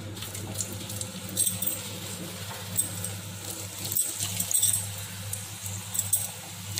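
Seedai, small rice-flour dough balls, sizzling in hot oil in a kadai just after being dropped in: scattered sharp crackles of frying over a steady low hum.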